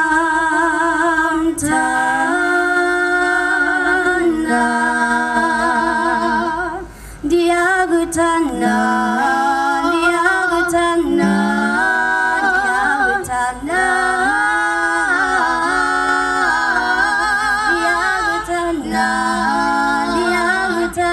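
Several voices singing unaccompanied in harmony, mostly long held notes, with a brief break about seven seconds in.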